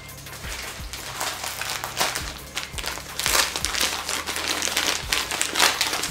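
Plastic packaging crinkling and rustling as a floral-printed packet is lifted out of a cardboard box and handled, the crinkling growing louder and busier about halfway through.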